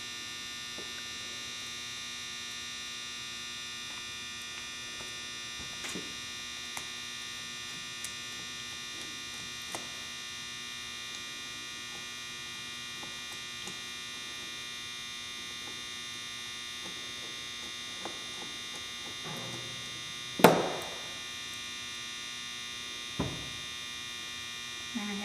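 Steady electrical hum with a high whine, under faint clicks of a screwdriver driving screws into a carburetor body. A sharp knock comes about twenty seconds in, and a lighter one a few seconds later.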